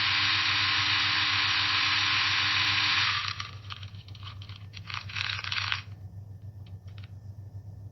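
Coffee beans being ground in a coffee grinder: a steady grinding noise for about three seconds, then it breaks into scattered crunches and rattles that die away about six seconds in. A low steady hum runs underneath.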